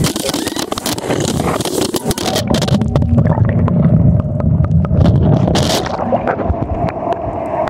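Camera knocking and scraping against rock as the person filming falls among the boulders: a run of sharp clicks and thumps. The rushing water of a small waterfall runs underneath and turns muffled and low about two and a half seconds in.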